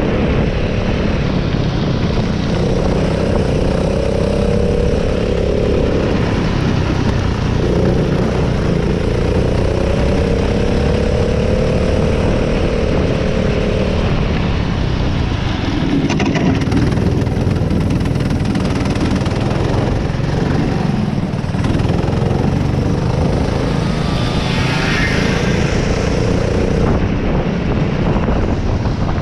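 Minikart's Honda four-stroke engine heard onboard at racing speed, its note climbing as it accelerates and dropping off several times as it slows, over a steady rush of noise.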